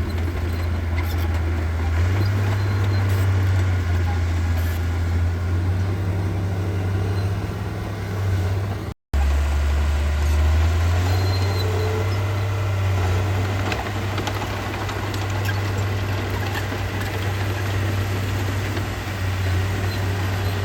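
Heavy earthmoving machine's diesel engine running steadily with a deep hum. The sound cuts out briefly about nine seconds in.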